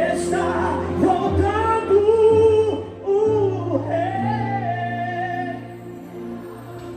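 Gospel band playing a slow worship song live, with a lead voice singing long, gliding held notes over sustained chords and bass. The music eases off a little near the end.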